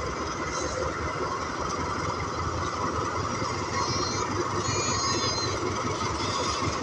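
A train running steadily, a continuous rumble, with a few faint high squeals about four to five seconds in.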